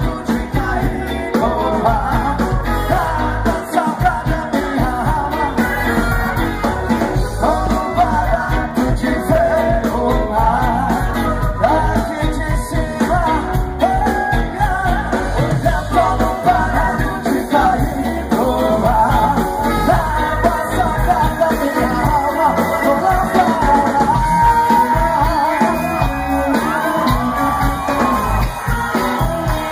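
Live reggae band playing amplified, with electric guitars, bass, drums, keyboards and percussion under a lead singer, loud and steady throughout.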